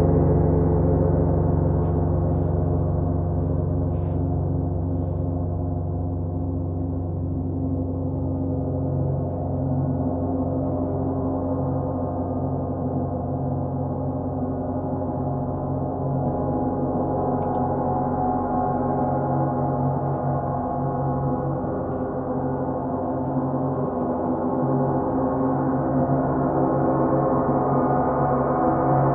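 A continuous, sustained wash of large gongs: many overlapping steady tones and a deep hum, kept going without gaps and swelling slightly near the end, with the 32-inch Sound Creation Earth gong being played.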